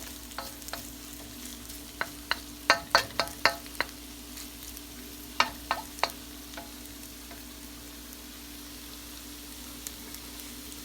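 Soba noodles sizzling in a frying pan while being stirred, with clusters of sharp clicks and scrapes of the utensil against the pan about two to four seconds in and again around five and a half seconds in. A steady hum runs underneath.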